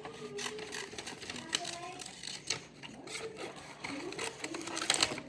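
Scissors cutting paper: a run of short, irregular snips.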